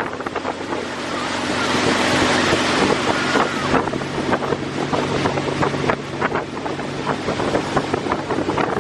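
A motor running steadily under heavy wind noise on the microphone, as on a fast-moving ride.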